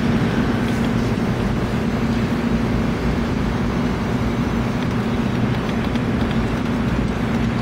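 A steady low hum over an even background noise, unchanging throughout.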